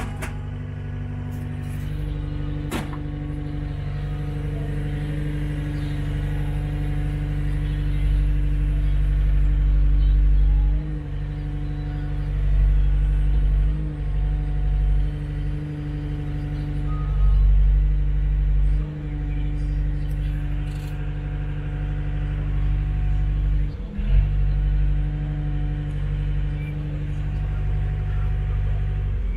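Wacker Neuson 75Z3 compact excavator's diesel engine running, heard from inside the cab. The engine swells and eases several times as the machine works its way onto a low-loader trailer. There is a sharp knock near the end.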